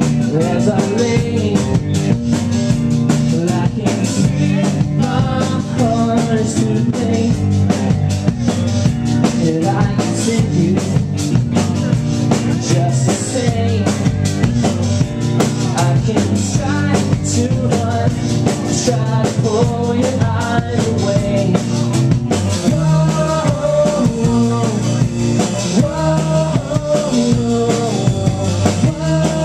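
Live indie rock band playing with a drum kit, guitar and keyboard, the drums keeping a steady beat.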